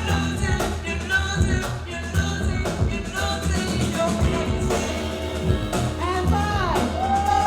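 Battle music with a heavy bass line, a steady drum beat and a sung vocal line that grows stronger near the end.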